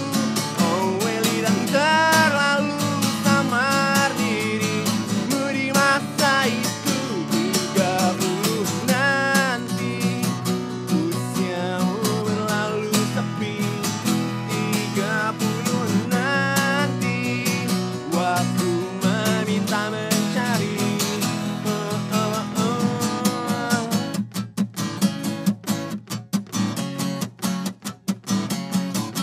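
Two acoustic guitars strummed together, a natural-finish dreadnought and a black cutaway acoustic-electric, with a man's voice singing a wordless line over them in parts. Near the end the strumming turns choppy, with short muted stops between strokes.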